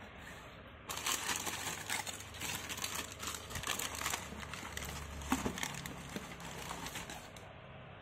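Tissue paper crinkling and rustling as hands unfold it from around a football boot in a cardboard shoebox. It starts suddenly about a second in and dies away shortly before the end.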